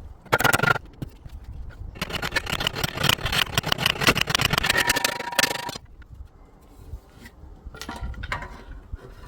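Hammer tapping rapidly on a small rivet to set it through a leather strap: a short run of strikes just after the start, then a dense run of about four seconds, then quieter scattered knocks.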